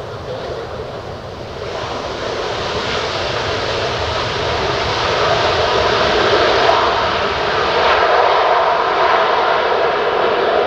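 Large jet aircraft's engines: a broad, steady roar that grows louder over the first five seconds or so and then holds.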